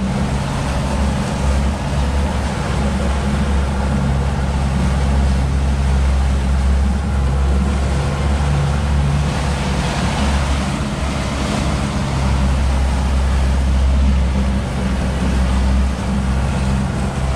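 A 200-hp outboard motor running at a steady trolling speed, a constant low hum under the hiss of water and wind rushing past the boat.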